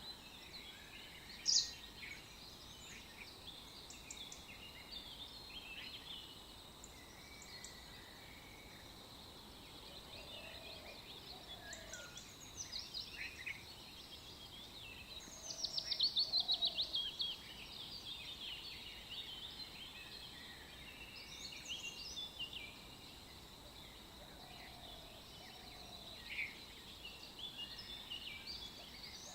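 Birds singing and calling over a steady background hiss: many short chirps and whistles, a sharp loud chirp near the start, and a fast trill of rapid repeated notes about halfway through, the loudest sound.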